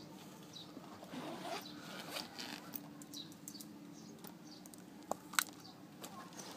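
Rustling and scraping of a fabric backpack and its nylon straps right against the microphone, with scattered small clicks and two sharp clicks about five seconds in, the second the loudest.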